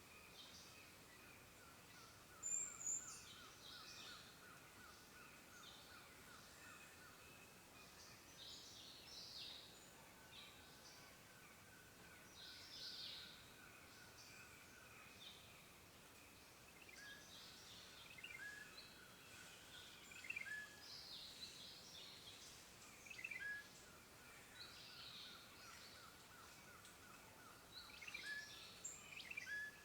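Faint woodland birdsong: various birds giving short high chirps and call notes throughout, with a soft pulsed trill running on and off in the first half.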